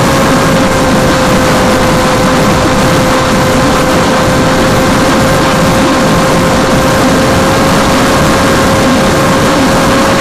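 Electric motors and propellers of an FPV aircraft, picked up by its onboard camera: a loud, steady whine holding one pitch, over a rush of wind and air noise.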